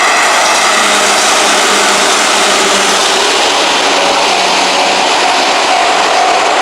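Electric train passing through a railway level crossing: a loud, steady noise of wheels and running gear on the rails.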